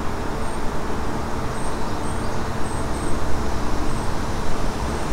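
Steady city street traffic noise, with a faint low hum and a few short, faint high chirps now and then.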